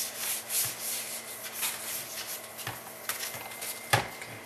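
Soft paintbrush bristles brushing across a laptop screen: a run of light, irregular rubbing strokes. A sharper knock comes near the end.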